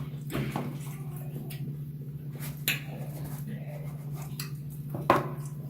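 Close-miked eating sounds: chewing with a few sharp smacks and clicks, the loudest about five seconds in, over a steady low hum.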